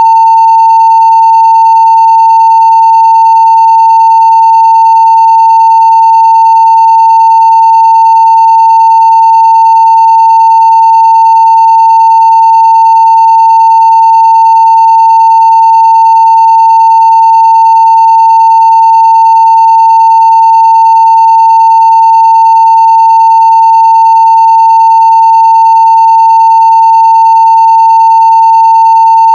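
Steady 900 Hz sine-wave test tone at full scale (0 dB), held unbroken, with faint higher overtones.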